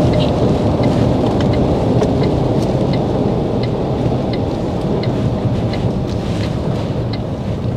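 Inside an Iveco HGV cab on the move on a wet road: steady, loud rumble of the engine with tyre and rain noise. Over it a light regular tick, about three every two seconds, from the indicator as the truck pulls over to the roadside.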